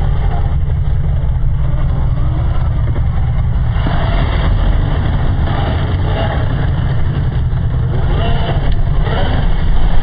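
Traxxas TRX-4 RC crawler with a Hobbywing Fusion Pro brushless motor driving over loose dirt and gravel, its motor and drivetrain whine wavering with the throttle over a strong, steady low rumble.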